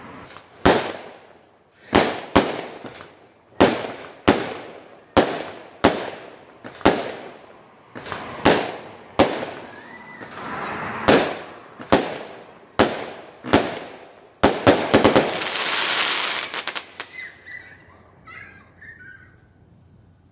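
Fireworks exploding in a run of sharp bangs, about one or two a second, each echoing away. Some fourteen seconds in, a dense burst of crackling takes over, then fades to faint scattered crackles.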